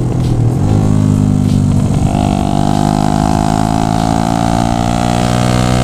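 Yamaha Jupiter MX underbone motorcycle's four-valve single-cylinder engine, bored up to 177 cc, running under way. Its note changes about half a second in, then holds and slowly rises in pitch as the bike picks up speed.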